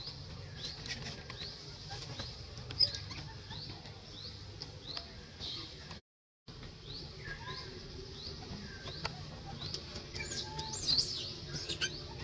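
Outdoor bird sounds: a short, high rising chirp repeated about every two-thirds of a second, with scattered sharp clicks and a burst of louder, higher squeaky chirps near the end. The sound cuts out completely for about half a second near the middle.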